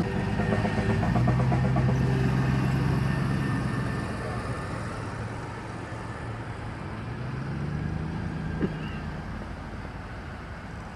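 Slow traffic passing close by: engines of cars and a small utility vehicle humming as they go through. One hum fades after about four seconds and another swells just before a single sharp tap about eight and a half seconds in.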